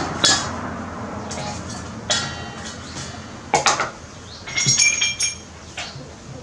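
Knocks and clinks of a stainless steel bowl, a knife and a wooden cutting board being handled on a wooden table, with a short run of ringing metal clinks about five seconds in.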